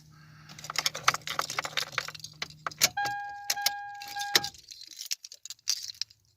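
Keys jangling and clicking in a car's cabin while a low hum cuts off with a click at about the three-second mark. A steady electronic warning beep then sounds for about a second and a half.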